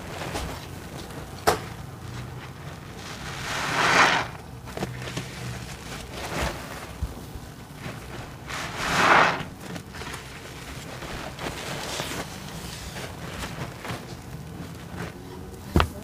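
A sudsy sponge squeezed and kneaded in a sink of soapy water, with two long squelching gushes of water and foam, about four seconds in and again about nine seconds in, and softer wet crackling between. A couple of sharp clicks, one early and one near the end.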